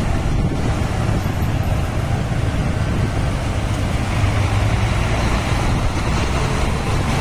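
Steady low engine rumble and road noise of slow driving, heard from close behind a Scania K360iB coach.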